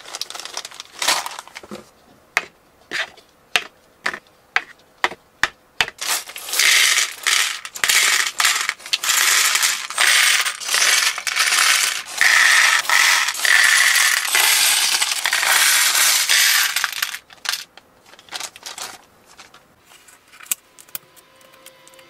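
Small plastic building bricks clattering. Scattered single clicks come first, then from about six seconds in a dense, loud rattle as the pieces are poured out of their bags into plastic bowls, thinning out to scattered clicks again near seventeen seconds.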